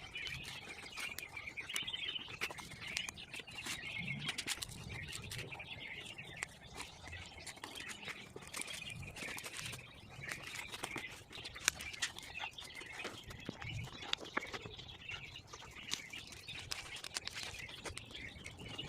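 Small campfire of dry twigs, needles and bark crackling with frequent sharp pops, with birds chirping in the background. A few dull thuds come along the way.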